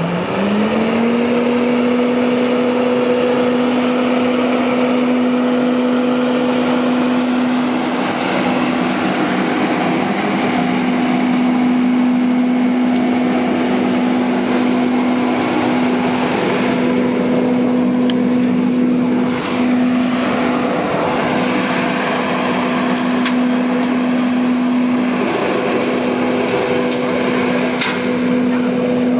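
ECHO AKKUVAC ES-424E battery-powered leaf and litter vacuum running. Its electric motor and fan rise in pitch to full speed about a second in, then hold a steady hum over a rush of air.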